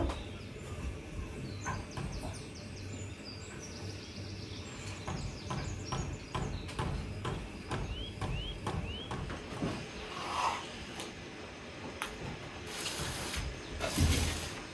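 Small birds chirping, with a few quick rising calls past the middle. Meanwhile a knife knocks steadily on a wooden cutting board as raw meat is cut, about two knocks a second. A louder rustling clatter comes near the end.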